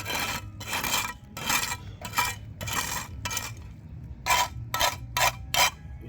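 Rhythmic scraping strokes from cleaning work, about two a second, turning shorter and quicker about four seconds in.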